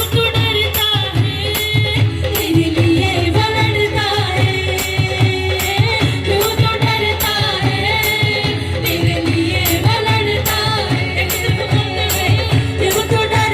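A worship song sung by a choir with instrumental backing, over a steady beat of high percussion strikes.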